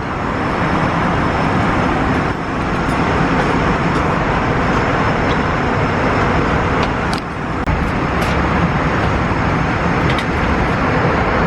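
Steady vehicle noise: a loud, even roar with a low rumble underneath, briefly dipping about two seconds and about seven seconds in.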